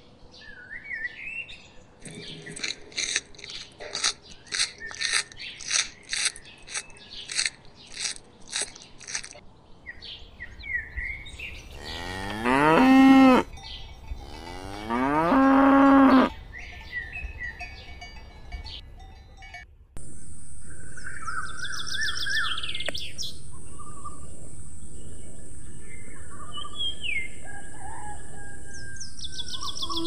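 Cattle mooing: two long, loud moos about three seconds apart near the middle. Before them comes a run of high chirps about twice a second, and after them a steady high hiss with scattered bird calls.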